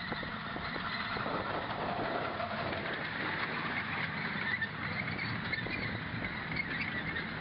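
Cars of a ride-on live steam miniature train rolling past on small-gauge steel track, the wheels running on the rails with scattered short high-pitched squeaks.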